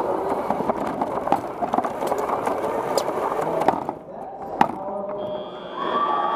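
Rolling rumble and rattling from a competition robot driving across the carpeted field, heard from a camera mounted low on the robot, with many sharp clicks and knocks. It stops about four seconds in, a single sharp knock follows, and a steady high tone sets in near the end.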